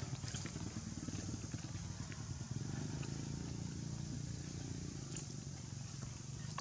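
A small engine running steadily at a low, even pitch, with a few faint ticks over it.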